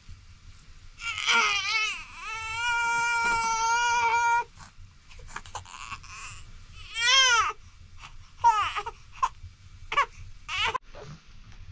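An infant crying: a long high wail held for a few seconds that stops suddenly, then after a pause a shorter cry and several brief cries.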